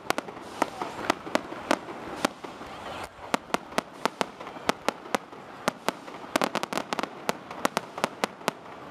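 Fireworks display: aerial shells bursting in quick, irregular succession, sharp bangs about three a second with bunches of rapid reports, over a continuous background rumble of the show.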